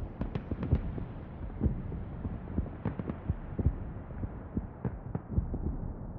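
Muffled, irregular low thumps and crackles with the treble gradually shut off, as in a filtered transition between tracks of a pop music mix.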